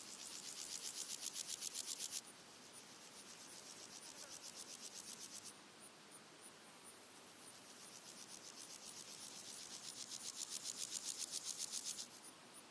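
Red-legged grasshoppers stridulating in rasping, evenly pulsed bouts of about eight or nine pulses a second. Each bout swells in loudness and cuts off suddenly: a loud one at the start, a quieter one, then a long one building to loud before stopping near the end. A faint regular high ticking from another insect runs underneath.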